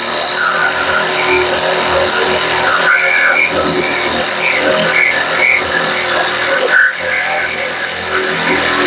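Electric jigsaw with a new blade cutting a circular hole through the sheet-metal floor of a pickup truck bed. It runs steadily with a few brief dips.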